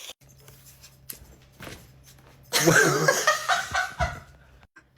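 A person's voice making a short, loud comic noise, laughter-like and wavering in pitch, for about a second and a half, beginning about two and a half seconds in. Before it there is only a faint low hum.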